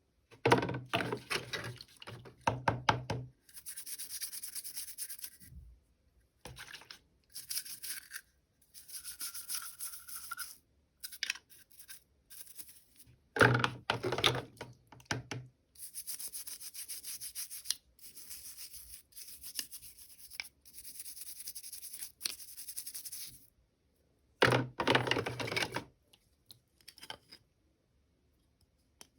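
Packaging being handled and opened for an unboxing: rustling, crinkling and tearing in short bursts, with three louder stretches of handling noise.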